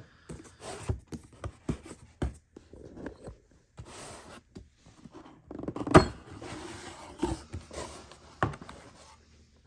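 Bicycle crankset parts and their packaging being handled: rustling with scattered small clicks and knocks, and one sharp knock about six seconds in.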